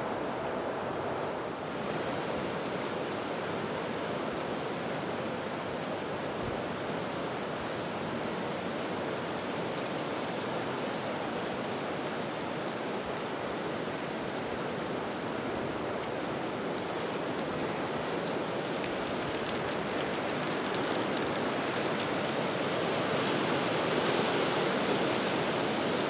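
Steady rushing outdoor woodland noise, a little louder near the end.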